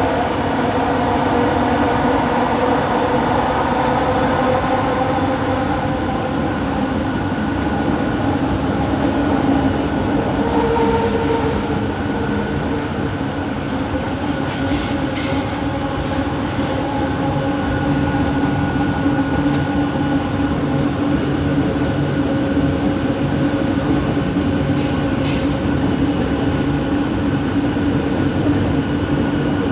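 Bombardier Innovia ART 200 metro train running between stations: the steady whine of its linear induction motors, several held tones, over the constant rumble of wheels on track. One tone falls in pitch at the very start.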